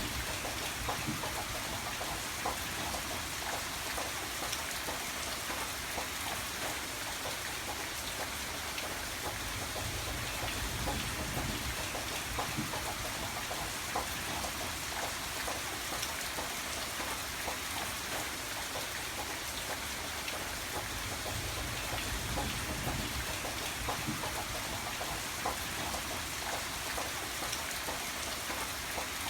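Steady rain falling, a constant hiss dotted with the ticks of individual drops on a surface.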